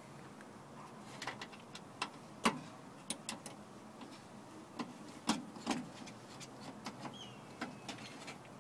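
Scattered small metal clicks and taps as bolts are fitted by hand into the steel inner door panel for a new window regulator, with two louder knocks about two and a half and five seconds in.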